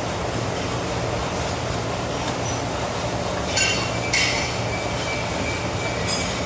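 Steady roar of a forge fire with a low hum underneath. Three light metallic clinks come about halfway through, at about four seconds and near the end; the second rings on briefly.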